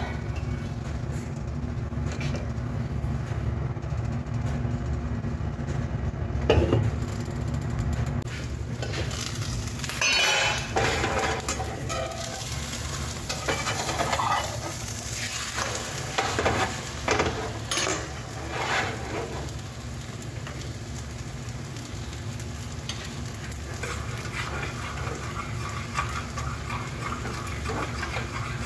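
Egg omelette frying in a nonstick pan with a steady sizzle over a low hum. A spatula scrapes and knocks against the pan several times around the middle as the edge is lifted.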